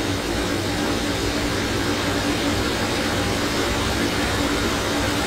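Steady, even hiss with a low hum underneath, unchanging and with no distinct events: background room or recording noise.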